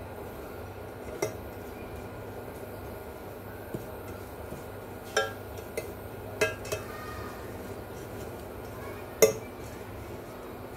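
Metal spoon clinking against a heavy metal pot while sugar melts in it for caramel: a handful of sharp clinks, each ringing briefly, the loudest about nine seconds in.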